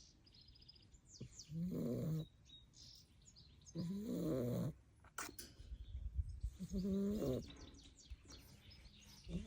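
Staffordshire bull terrier puppy snoring in deep sleep: three pitched, wavering snores about two and a half seconds apart, each under a second long, with quieter breathing between.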